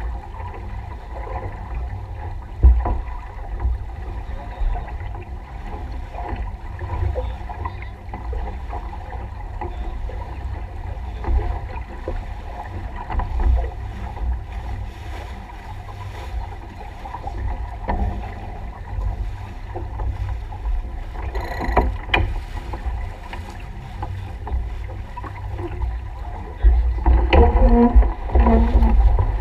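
Wind buffeting the microphone and water rushing past the hull of a small racing keelboat under sail, with a few sharp knocks. Near the end it gets louder and busier as the crew moves about the deck.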